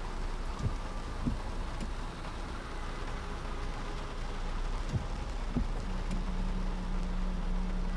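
Car driving in heavy rain: a steady wash of rain and wet-tyre noise over a low road rumble, with a few soft knocks. A steady low drone joins about three-quarters of the way through.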